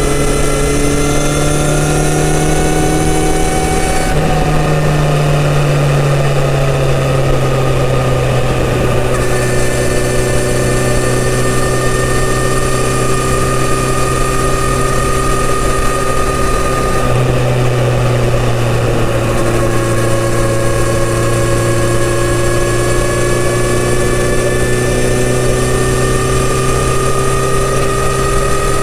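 Kawasaki Z900RS's inline-four on its stock full exhaust system, running steadily under way on the road. The engine note drifts slowly in pitch, with clear changes about four seconds in and again around seventeen seconds.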